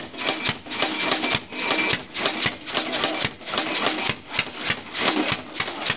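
Hit-and-miss engine built from an old air compressor, spun over by a hand-held power tool: a fast, even mechanical clatter of sharp clicks that swells about three times a second.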